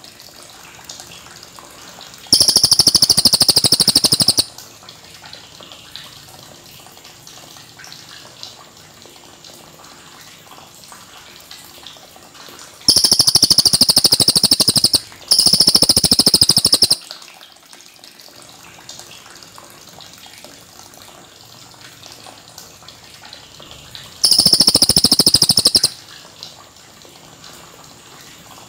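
Cililin (rufous-tailed shama) singing four loud, high, rapidly trilled phrases of about two seconds each: one about two seconds in, two back to back in the middle, and one near the end. A low steady hiss fills the gaps between phrases.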